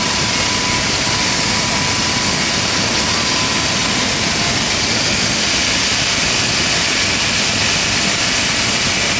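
Concrete cutting machine running steadily: a loud, even, hissing machine noise, brightest in the upper range.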